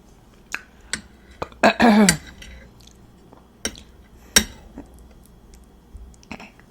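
Scattered clinks and taps of cutlery against a plate while eating, with a short voiced sound about two seconds in.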